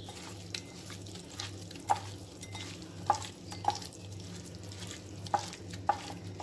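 A hand squishing and mixing raw chicken pieces with spice powders in a glass bowl, with a few sharp clicks scattered through it. A faint low hum pulses steadily underneath.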